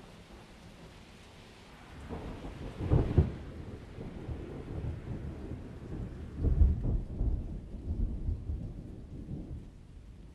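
Thunder from a close, vigorous thunderstorm. A deep rumble builds about two seconds in, with two loud peaks about three and six and a half seconds in, then rolls on and eases off near the end.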